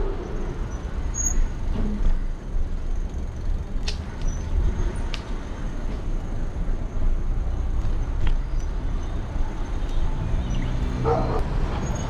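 Wind buffeting and road rumble picked up by a camera on the handlebars of an electric scooter riding along a city street, with a few sharp clicks and a brief pitched call about eleven seconds in.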